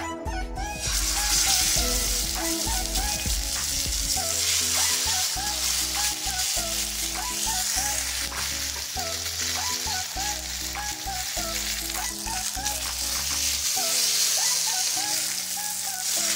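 Marinated whole kingfish sizzling as it shallow-fries in hot coconut oil on an iron griddle. A steady, loud hiss that sets in about a second in and holds.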